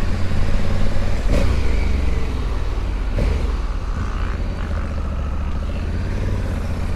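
Honda Africa Twin's parallel-twin engine running steadily as the motorcycle rides along, with wind noise over it.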